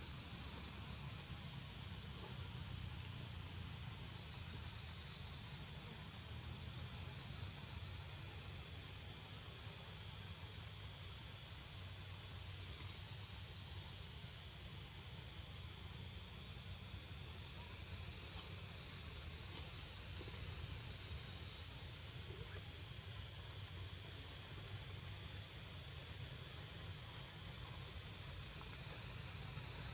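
Steady, high-pitched drone of a forest insect chorus, unbroken and even throughout.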